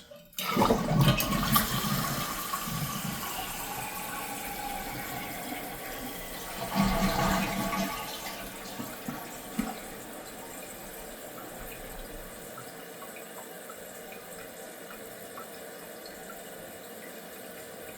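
Toilet flushing: a sudden rush of water about half a second in that dies away over several seconds, with another surge around seven seconds in. It settles into the steady hiss of the newly installed fill valve refilling the tank.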